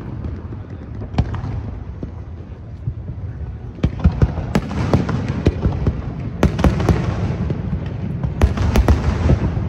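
Aerial fireworks going off: a low rumble throughout, one sharp bang about a second in, then a dense run of bangs and crackles from about four seconds on.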